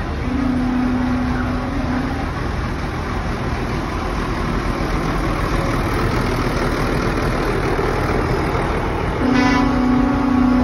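Large farm tractors' diesel engines running with a steady low rumble as they drive slowly past in a line. A horn sounds for about two seconds just after the start, and again, louder, near the end.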